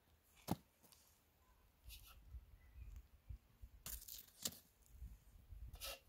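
Potatoes being set by hand into an earth-clod pit oven lined with aluminium foil: a sharp knock about half a second in, then a few short crinkles and knocks of potato on foil and clods.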